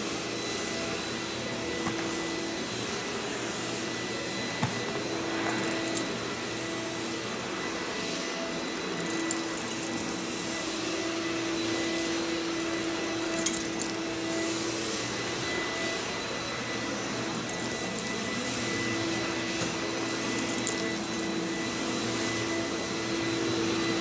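Hoover backpack vacuum running steadily while its wand and floor tool are pushed across carpet, with a steady whine and a few sharp clicks.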